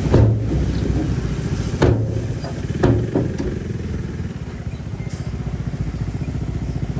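A heavy diesel bulldozer engine running steadily with a low, pulsing rumble. Four sharp metallic clanks come in the first half.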